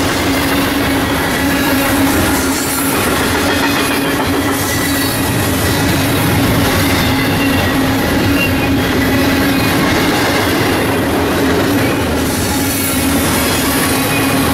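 Double-stack container freight train passing close by: the steady rumble and rattle of the loaded well cars' wheels running on the rails, with a steady low drone underneath.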